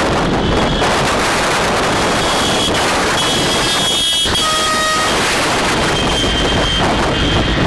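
Heavy wind rush on the microphone and road noise from a moving car, with car horns tooting from about two seconds in; one horn sounds clearly for about half a second near the middle.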